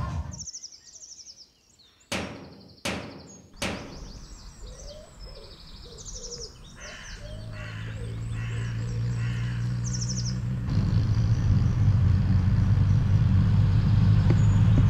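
Birds chirping, with three sharp knocks about two seconds in, each a little under a second apart. A low steady hum then builds through the second half and becomes the loudest sound.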